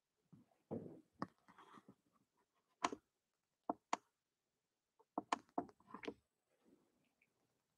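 Scattered light clicks and knocks. There is a softer rustling thud about a second in, a sharp click near three seconds, and a quick cluster of clicks between five and six seconds.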